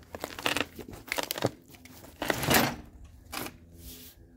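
A sheet of cardboard carrying a riding mower's cutting deck crinkling and scraping over concrete as it is pushed along in about four short shoves, the loudest about two and a half seconds in.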